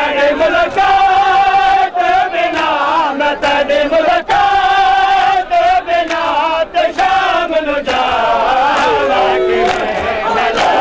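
Male mourners' chant during a Muharram procession: loud voices holding long, drawn-out notes. Near the end it breaks into a more ragged crowd shouting.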